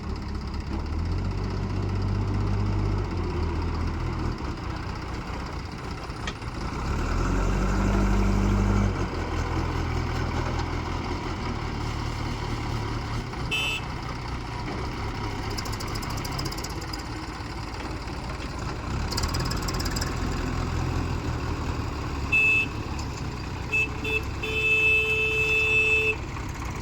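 Heavy diesel engine running, louder for a couple of seconds about seven seconds in. Several short beeps sound near the end.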